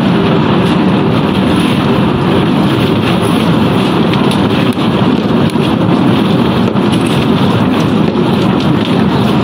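Roller-type concrete pipe spinning machine running, its steel mould turning on its rollers as concrete mix goes in: a loud, steady noise with no let-up.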